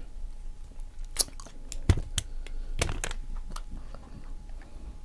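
Close-miked chewing and biting of food, with a string of short, sharp, wet mouth clicks.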